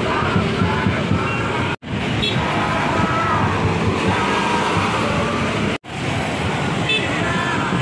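Road traffic and bus engines running as buses full of football supporters pass, with the supporters' voices mixed in. The sound drops out briefly twice, about two and six seconds in.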